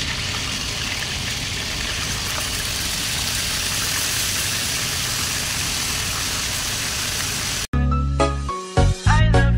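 Chicken pieces deep-frying in hot oil in a wok, a steady sizzling hiss. Near the end it cuts off suddenly and music begins.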